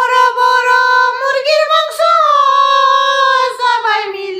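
A high-pitched voice singing long held notes that slide gently up and down, unaccompanied.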